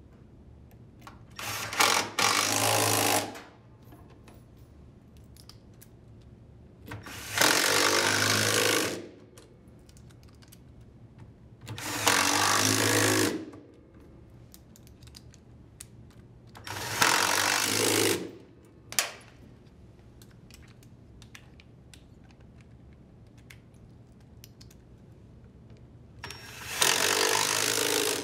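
Cordless impact driver run in five bursts of one to two seconds each, hammering bolts tight into the washer's tub weights, with short pauses between bolts.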